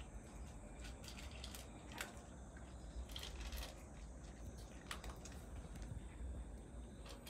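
Cat crunching dry kibble from a metal tray: faint, scattered crisp clicks, most of them bunched together about three seconds in.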